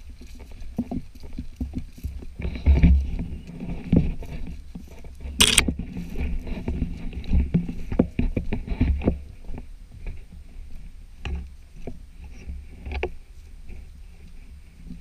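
Footsteps pushing through dense dry bracken and gorse: irregular swishing and rustling of stems against the legs, with twig snaps and a sharp crackle about five and a half seconds in, over a low rumble on the body-worn microphone.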